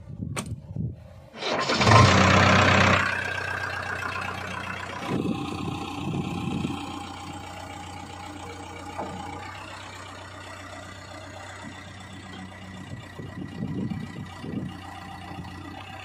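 JCB 3DX backhoe loader's diesel engine started with the key: a brief crank, then the engine catches about a second and a half in with a loud flare and settles into a steady idle, with a few brief swells later on.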